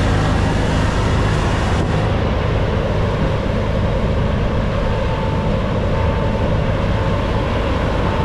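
New Holland CX8.90 combine harvester running steadily while cutting wheat. Faint short beeps come about once a second in the second half.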